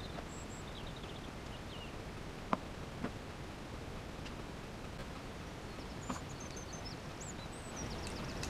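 A few light clicks of small RC shock-absorber parts being handled and fitted by hand, over a quiet steady hiss. Faint bird chirps come and go in the background.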